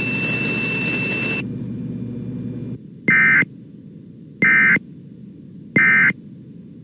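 Radio hiss for the first few seconds, then three short, loud, identical warbling data bursts about a second and a half apart. These are the Emergency Alert System's end-of-message (EOM) codes, sent three times to close the relayed test.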